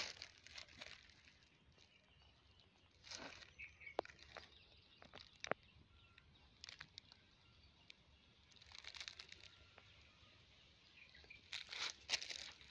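Faint, mostly quiet outdoor background broken by scattered brief rustles and sharp clicks from handling the puppy's fur and its chain collar, with a few faint short bird chirps.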